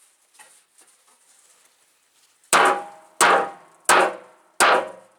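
Sledgehammer blows on a steel truck fender, beating out a dent: four hard, evenly spaced strikes about two-thirds of a second apart, each ringing briefly. Before them, about halfway in, only a few faint light knocks.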